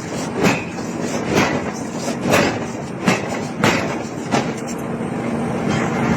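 Hammer blows striking hot iron being forged, about one a second, six strikes, stopping after about four and a half seconds. A steady machine hum with a low tone runs underneath and comes up near the end.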